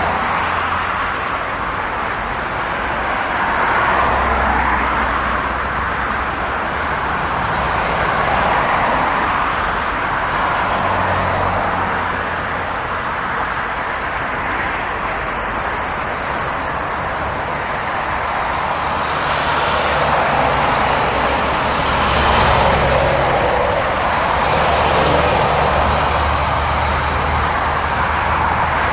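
Fast traffic on a dual carriageway: lorries and cars passing one after another, tyre and engine noise swelling and fading as each goes by, over a low diesel engine hum.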